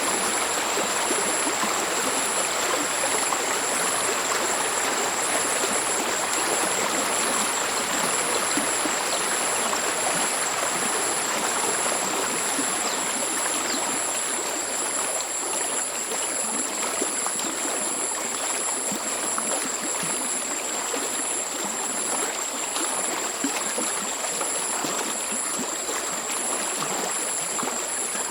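Stream water flowing steadily with a soft, even murmur. Two thin high tones run above it the whole time, the upper one pulsing evenly.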